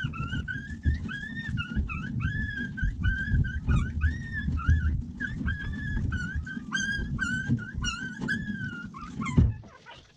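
A newborn American Bully puppy crying in a long run of short, high-pitched squeals, about two a second, over low handling noise; a loud thump near the end, then the crying stops.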